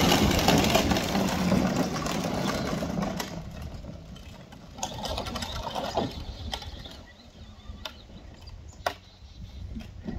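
Electric motors and plastic gearboxes of a Ford F-150 ride-on toy truck whirring as it drives over grass, loudest at first and fading after about three seconds, with a couple of sharp clicks later on.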